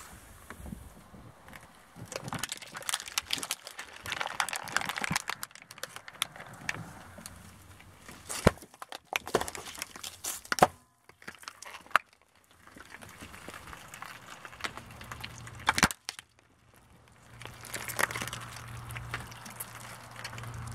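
Car tyre rolling slowly over plastic-capped drink cartons and plastic cups of fruit jelly, crushing them: crackling and crunching plastic, with several sharp loud cracks as they burst. The sound drops out briefly twice, and a low steady hum sits under the last few seconds.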